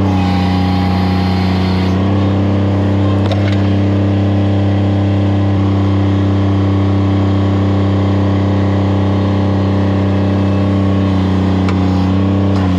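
An engine running steadily at a constant speed, with a slight shift in pitch about two seconds in.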